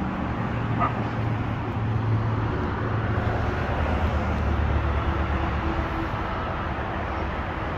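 Steady outdoor background rumble with a low hum, like distant road traffic or a running machine, and a brief faint high call about a second in.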